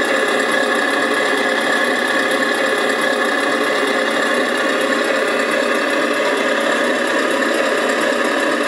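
1/14 scale radio-controlled IVECO 4x4 dump truck running with a steady, even mechanical sound that holds level throughout, with no low bass.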